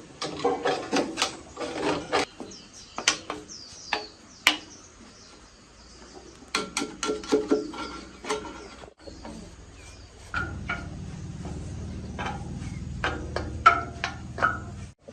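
Hand work on metal machine parts: a string of clinks, taps and scrapes, some of them ringing. A steady low hum joins in about two-thirds of the way through.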